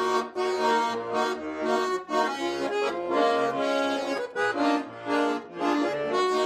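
Accordion playing the melody of an instrumental break in a lively song, with a regular pulsing bass beneath.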